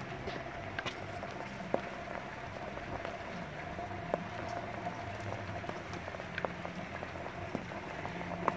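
Cylinder stove with a pellet burner attachment running: a steady low hum and hiss, with scattered light ticks and pops.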